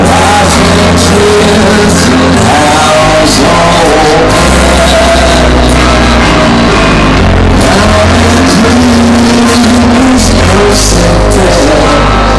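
Live rock band playing loud, heard from within the audience: electric guitars, bass and drums with a sung vocal line.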